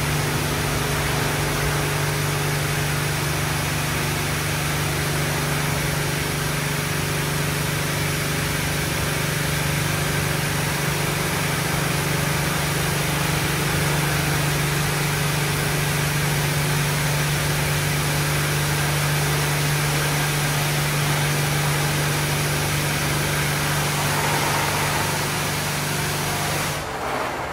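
Christ GENIUS C160 rollover car wash running: a steady machine hum under a broad, even hiss, which cuts off abruptly just before the end.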